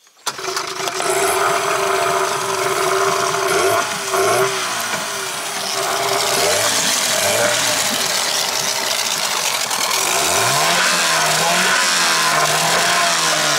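Suzuki DT9.9 oil-injected twin-cylinder two-stroke outboard catching just after a pull-start, without choke. It runs with its revs rising and falling a few times, then climbing about ten seconds in and holding steady.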